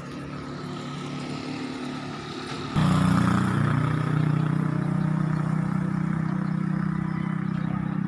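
A vehicle engine running steadily, a low even hum. It jumps suddenly louder about three seconds in and holds there.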